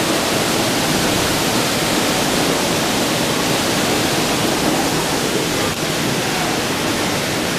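Cockermouth River water rushing through a narrow rock gorge: a steady, loud hiss of running water.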